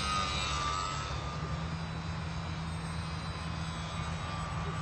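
Motor and propeller of a radio-controlled Focke-Wulf Fw 190 model plane in flight, a thin whine that is loudest about half a second in and falls in pitch as the plane passes close, then carries on fainter and steadier.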